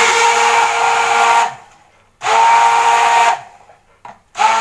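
Electric hand blender run in short bursts in a jug of coffee and cold milk, its motor whining steadily: twice for a second or so, then starting again near the end. It is whipping the coffee into a froth.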